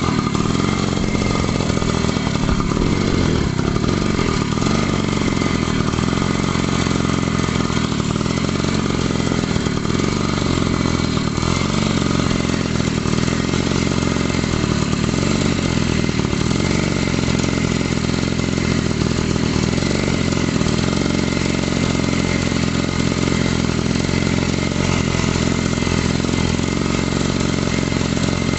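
Daelim motorcycle engine running steadily at a fairly even speed, with slight rises and falls in pitch.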